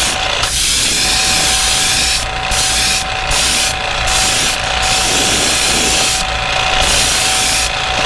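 Iwata Eclipse airbrush hissing as it sprays paint onto a lure, the air cutting out in short breaks every second or so as the trigger is let off and pressed again. A steady low hum runs underneath.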